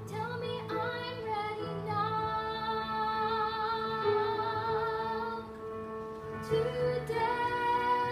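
A girl singing a solo song, holding long notes with vibrato, over instrumental accompaniment.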